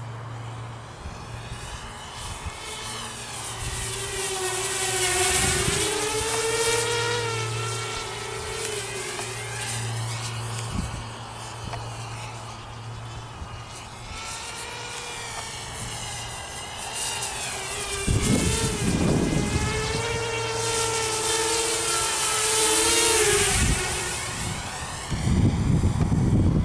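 Walkera F210 racing quadcopter flying, its brushless motors and propellers whining in tones that swoop up and down with the throttle. It is loudest in two passes, and twice, about eighteen seconds in and near the end, a low buffeting noise breaks in.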